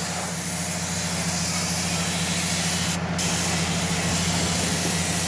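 Gravity-feed compressed-air paint spray gun spraying paint with a steady hiss, pausing briefly about three seconds in, over a steady low hum.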